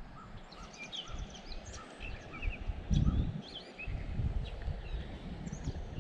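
Several songbirds chirping and trilling, one repeating a short note about three times a second that stops about a second in. Under them, uneven low rumbling of wind gusting on the microphone, strongest about halfway through.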